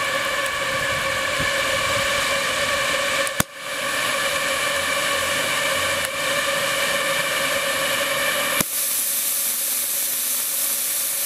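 Safety valve on a 7¼-inch gauge model Orenstein & Koppel steam locomotive's boiler lifting and blowing off steam: a steady hiss with whistling tones in it, a sharp click about a third of the way in, and the hiss suddenly turning brighter and higher about three-quarters through. It signals that the boiler is up to working pressure.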